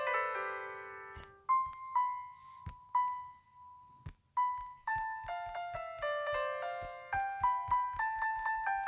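Background piano music: a rippling cluster of notes at the start, a few slow single notes in the middle, then a steady stream of quicker notes from about halfway through.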